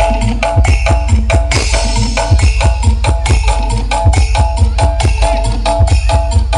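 Loud percussive dance music with a heavy bass beat and a repeating melody, played through the Blizzard Audio 'horeg' parade sound system.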